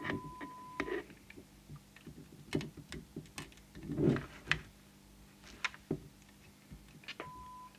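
Scattered small clicks and scratchy knocks from a trimming tool working the RV1 preset potentiometer on the CB radio's circuit board. The repairer thinks the preset has disintegrated. A steady test tone sounds at the start, cuts off about a second in, and returns briefly near the end.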